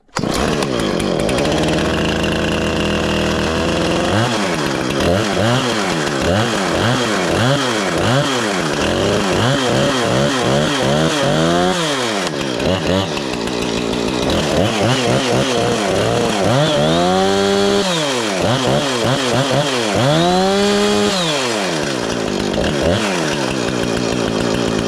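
Husqvarna 455 Rancher two-stroke chainsaw on a cold start: it runs at a steady idle for a few seconds, then is revved up and down over and over, and drops back to idle near the end.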